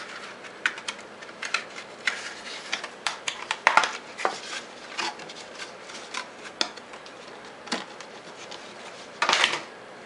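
Scattered light clicks and taps, about one or two a second, with a short louder rustle near the end.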